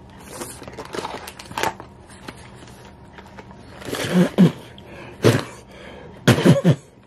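Crinkling and rustling of a mini snack pie's wrapper being handled and opened, then a man's short hummed vocal sounds and chewing as he bites into the pie, with a louder pair of such sounds near the end.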